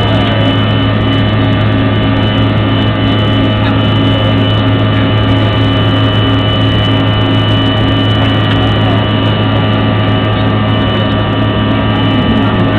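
Cabin noise inside a CRJ-200 regional jet in climb after takeoff: its rear-mounted General Electric CF34 turbofans and the airflow make a steady drone, with a low hum and a high, steady whine.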